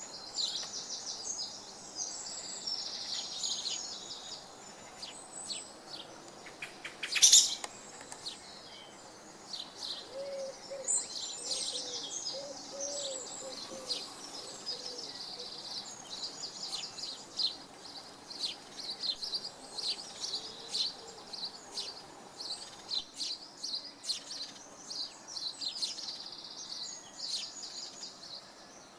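Woodland birdsong: several small birds chirping and singing in quick overlapping phrases, with one loud sharp note about seven seconds in. A low repeated call comes through between about ten and fifteen seconds.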